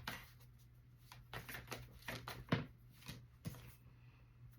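Tarot cards being handled and laid down: a few soft card slaps and taps, the loudest about two and a half seconds in.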